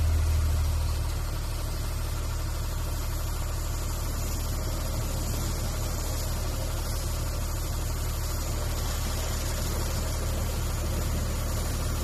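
Automatic gantry bus washing machine running, its top brush turning as it travels along the rails: a steady low hum with a faint high hiss, a little louder in the first second.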